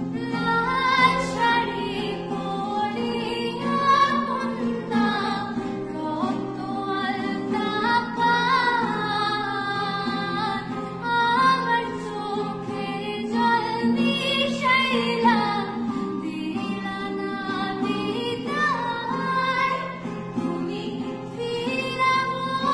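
A young woman singing a melody solo, accompanying herself on an acoustic guitar.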